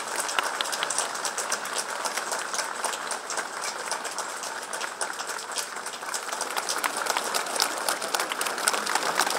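A large crowd applauding, dense hand clapping at a steady level.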